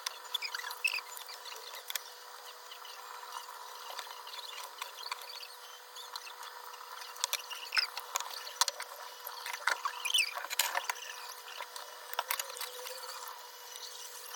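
Kitchen handling noises: scattered small clicks and taps with brief squeaks, busiest in the second half, over a faint steady hum.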